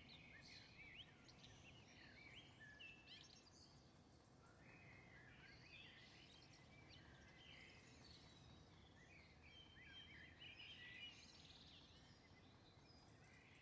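Faint birds chirping, many short rising and falling calls scattered throughout, over a low steady outdoor background noise.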